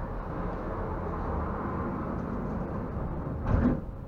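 Stadler Variobahn tram running with a steady low rumble, then one short, loud noise about three and a half seconds in.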